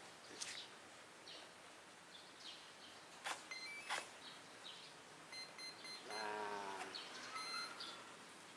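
Faint clicks from the RC plane's battery being connected, with short, high electronic beeps from the RC gear, once about three and a half seconds in and as a quick run of beeps at about five and a half seconds. About six seconds in comes a brief wavering animal call.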